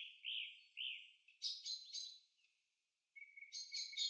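Small birds chirping faintly: a few short, arched chirps in the first second or so, a brief pause, then a quicker run of chirps from about three seconds in.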